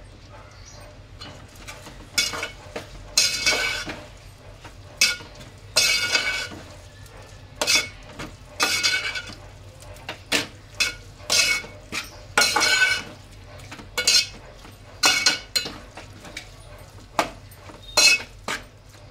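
Metal slotted turner stirring a thick masala in an aluminium pot, clinking and scraping against the pot's sides about once a second, each clink ringing briefly.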